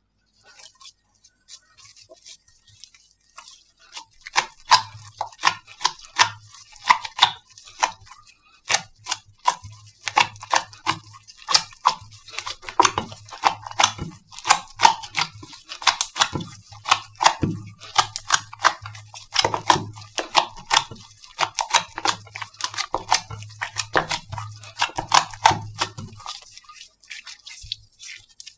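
Slime being pressed and squished by hand, making a fast string of sharp clicks and pops. The clicks are sparse at first, come thick and fast from about four seconds in, and thin out near the end.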